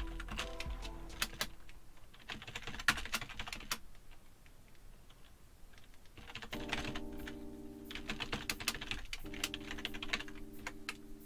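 Typing on a computer keyboard: quick flurries of key clicks with short pauses between them, as code is entered.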